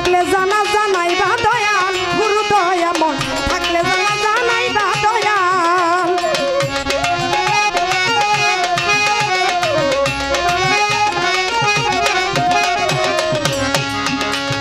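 Instrumental interlude of Bengali folk music: tabla drums playing a steady rhythm under a wavering, ornamented melody line.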